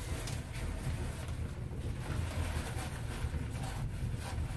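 Rustling of a sheet of old orange tent fabric being handled and hung up over gaps in a log wall, a few faint rustles over a steady low rumble.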